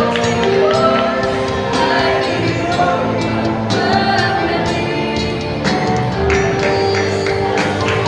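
Mixed youth choir singing a gospel song together over band accompaniment, with long held notes and a steady drum beat.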